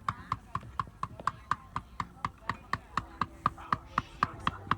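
Rapid, very regular knocking, about four strokes a second, each stroke with a short bright ring.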